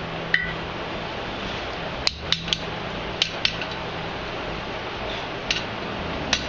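Hammer blows on hot steel over an anvil, forging a steel icosahedron die: about eight short, sharp metallic strikes at uneven intervals, some in quick twos and threes, over a steady low hum.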